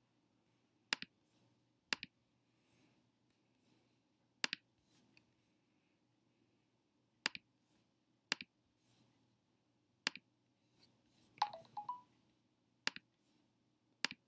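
Computer mouse button clicks: about eight sharp clicks at irregular intervals of one to three seconds, most followed by a softer second click, with a short louder sound about three-quarters of the way through.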